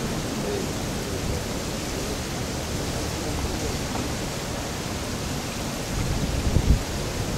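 Steady noisy rumble of wind buffeting the microphone, with no music playing, and a brief louder gust about six and a half seconds in.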